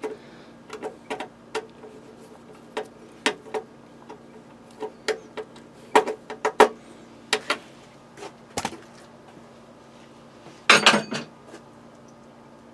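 Scattered small metal clicks and clinks as a flathead screwdriver works the single screw on a Cisco router's sheet-metal case, with a louder burst of clattering near the end.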